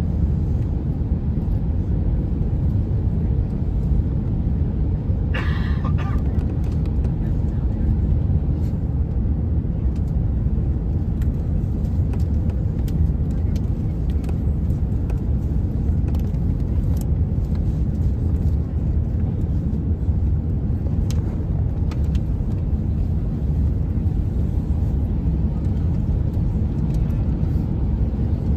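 Airbus A350 cabin noise on approach: a steady low rumble of airflow and engines heard from inside the passenger cabin. A short higher-pitched sound cuts in briefly about five seconds in.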